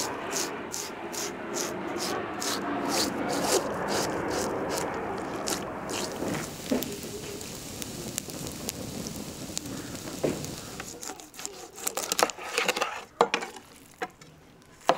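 A knife scraping scales off a whole salmon in quick, even strokes, about two or three a second, for the first several seconds. A few sharp knocks and taps of the fish and knife on a wooden cutting board come near the end.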